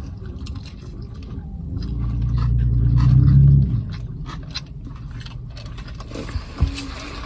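Close-up chewing of a sandwich, with small wet clicks and scrapes. In the middle a low rumble swells for about two seconds and then cuts off suddenly.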